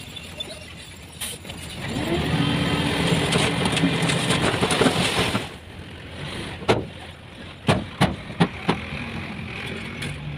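Heavy construction vehicle engine working: it rises to a loud, noisy stretch for about three and a half seconds, then drops back to a lower run. Several sharp knocks or bangs come about two-thirds of the way through.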